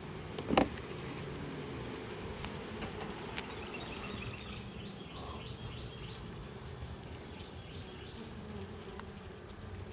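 Honey bees buzzing steadily around an open hive, with one short knock about half a second in.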